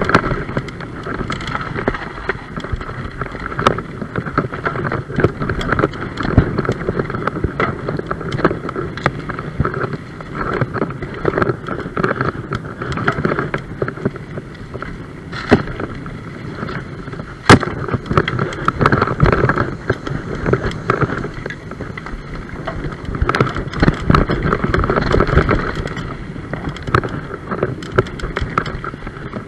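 Mountain bike running fast down a dirt forest trail: tyres rolling and crunching over dirt and leaves, the bike rattling with frequent knocks over bumps, and wind on the microphone. A sharp knock stands out about 17 seconds in.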